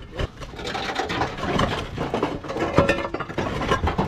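Clay roof tiles clattering and scraping against each other as they are lifted off the battens and stacked: a dense, continuous run of knocks and scrapes.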